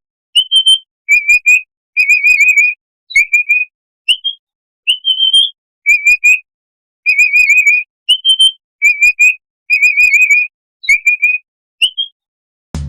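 Capybara whistling: about a dozen short, high, clear whistles with short gaps between them, some sliding upward and others warbling up and down.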